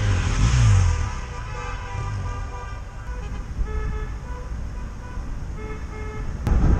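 Car horns giving short toots now and then over the low rumble of a car driving in a slow convoy.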